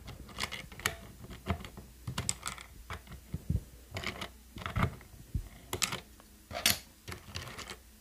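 Keycaps being pried off a mechanical keyboard with a plastic ruler: irregular sharp plastic clicks and clacks as the caps pop off their switches and knock against the board.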